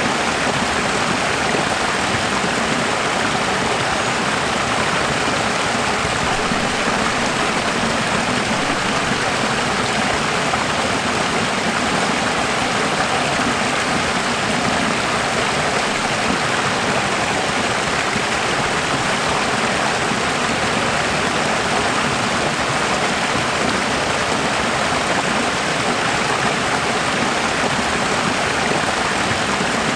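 Running water flowing steadily in a continuous, even rush with no breaks or changes.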